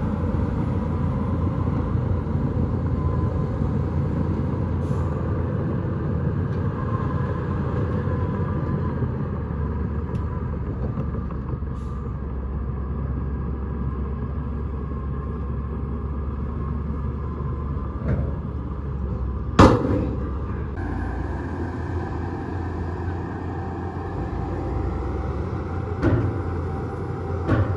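Bulldozer's diesel engine running steadily, with a loud sharp knock about two-thirds of the way through and a few fainter knocks near the end.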